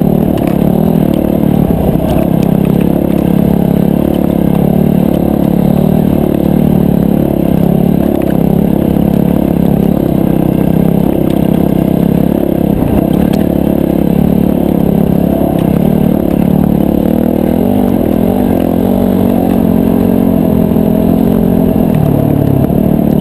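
Off-road racing motorcycle's engine, heard from a camera mounted on the bike, running hard at speed with the revs rising and falling over and over.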